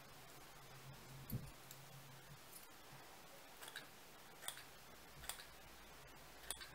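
Near silence with a faint low hum and a handful of faint, scattered clicks and taps from small handling of fly-tying materials and tools, the strongest about a second in.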